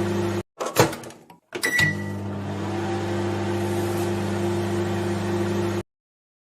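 Microwave oven running with a steady hum that cuts off. A clunk follows, then a click and a short high beep as it starts again, and the hum runs on until it stops abruptly near the end.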